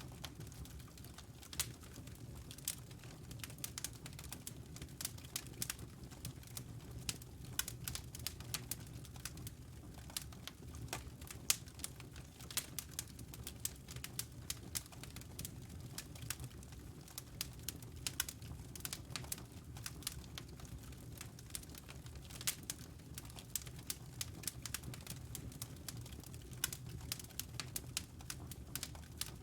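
Wood fire burning in a fireplace, crackling with many irregular sharp pops and snaps over a steady low rumble.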